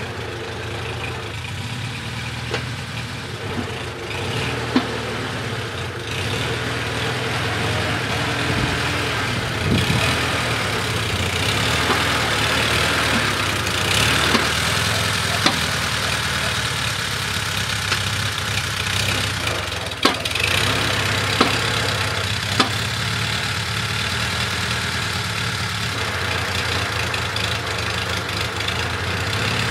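Homemade tractor's engine running at a steady idle while its hydraulic lift arm is worked, growing somewhat louder through the middle. Several sharp knocks sound over it.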